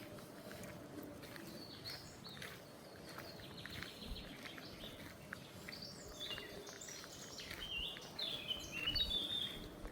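A songbird singing in short phrases, ending in louder runs of notes that step down in pitch near the end, over the crunch of footsteps on a path.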